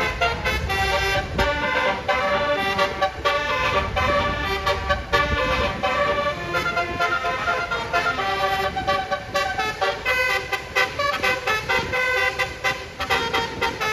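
Bus multi-tone "basuri" telolet horn playing a fast melody of short, clipped notes in the "dut dut" style.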